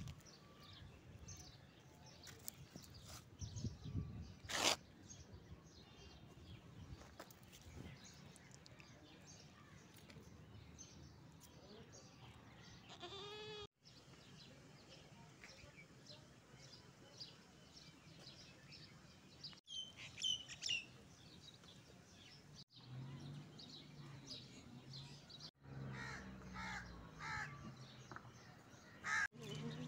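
Faint farmyard sounds: a goat bleats once a little before halfway, small birds chirp, and chickens cluck near the end. The sound cuts off abruptly several times.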